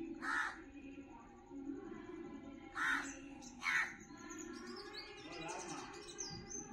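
Crows cawing outdoors: three harsh caws, one at the start and two close together about three seconds in, with smaller birds chirping in thin rising and falling notes near the end.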